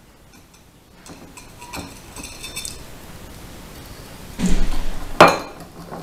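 A wire whisk and ceramic crockery scraping and clinking as cocoa powder is tipped into a bowl of batter and stirred. There is faint scraping from about a second in, then a louder clatter of knocks and clinks about four and a half to five and a half seconds in.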